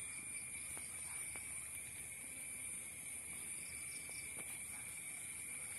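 Insects droning steadily in a high, unbroken hum, with a few faint ticks.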